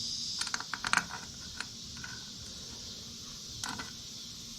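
A small part dropping off a Honda Reflex scooter's rear wheel assembly during removal and clattering: a quick run of sharp clicks, loudest about a second in, a single click soon after and another short clatter near the end. A steady high insect drone runs underneath.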